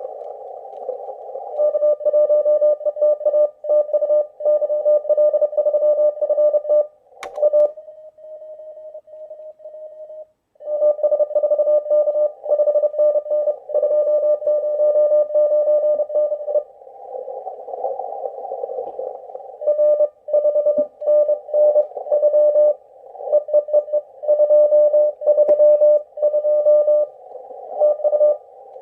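Morse code (CW) from an amateur radio transceiver: a single steady-pitched tone keyed in dots and dashes, sending contest exchanges in three long runs. Between the runs there is hiss of band noise heard through a narrow receive filter.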